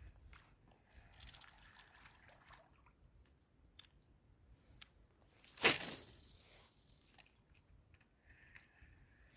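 A single sharp splash in the water a little past halfway through, fading over about a second.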